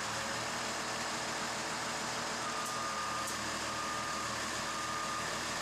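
School bus engine running at idle while a reversing alarm beeps in steady, evenly spaced pulses of about one a second, starting a couple of seconds in: the bus is being backed up a short distance.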